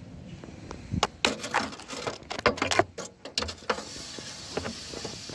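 Dryer vent lint brush scraping and knocking inside the vent exit as it is worked back and forth to pull out lint: a run of irregular clicks and scrapes between about one and four seconds in.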